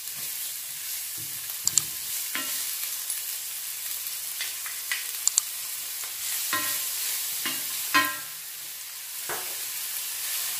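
Chopped onion and garlic sizzling in olive oil in an enamelled casserole, stirred with a silicone spatula: a steady high frying hiss with a few sharp clicks and short scrapes against the pan, the loudest scrape about eight seconds in.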